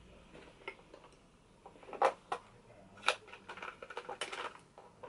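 Makeup products and brushes being handled and rummaged through: a few sharp clicks and knocks about two and three seconds in, then a run of small rattling clatter.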